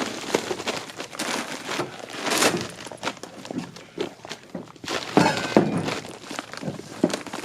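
Footsteps and heavy bags of frozen coal being handled, heard as a series of irregular thuds and scuffs.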